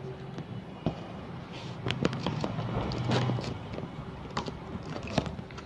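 A key slitting the packing tape along the seam of a cardboard box: scraping and crackling of tape and cardboard, with irregular clicks and knocks, busiest from about two seconds in.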